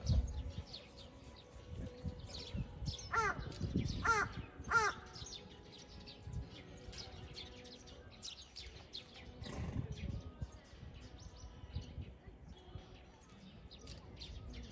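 A crow cawing three times, a few seconds in, over a background of small birds chirping.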